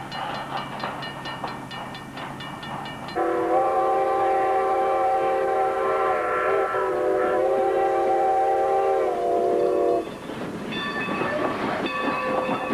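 Railroad crossing bell dinging rapidly. About three seconds in, the Strasburg Rail Road's No. 90, a 2-10-0 steam locomotive, blows a long chime whistle for about seven seconds. The whistle then cuts off and the locomotive and coaches rumble and clatter past close by.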